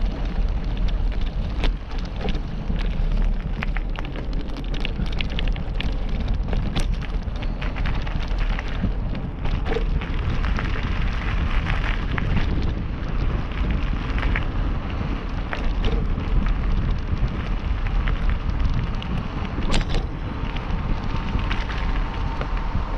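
Wheels rolling fast down a loose gravel track, a steady crunching rumble with wind buffeting the microphone and many scattered clicks and rattles of stones and the machine. A faint steady tone comes in near the end.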